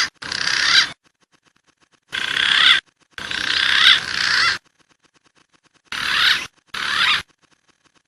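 Wild pigeon calls from a bird-lure recording: wavering, whistled calls in short bursts, mostly in pairs, about five of them with short silent gaps between.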